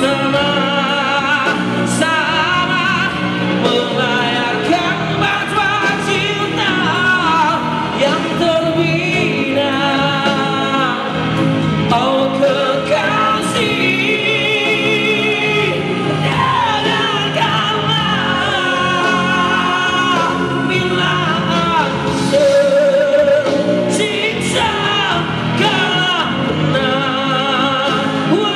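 Male singer performing a Malay rock ballad live through a handheld microphone, his voice wavering with vibrato over loud backing music.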